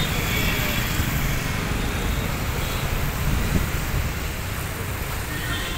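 Distant Boeing 777-300ER jet engines at takeoff power: a steady low rumble.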